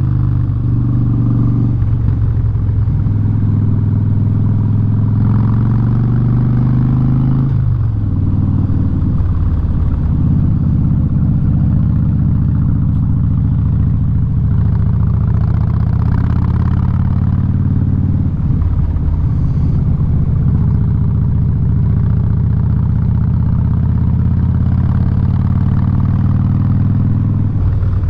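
Harley-Davidson Street Bob's V-twin running loud through an aftermarket Vance & Hines exhaust while riding, with a short break in the engine note about eight seconds in and another change near nineteen seconds.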